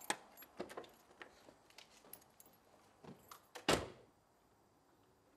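Mini hatchback's car door unlatched with a sharp click, then small clicks and knocks as someone gets into the seat, and the door swung shut with one loud thud nearly four seconds in.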